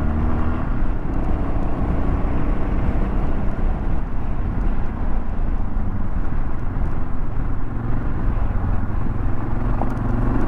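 A 1996 Yamaha XT 600 E's single-cylinder four-stroke engine running steadily as the bike rides along a trail, with a steady rushing noise over it.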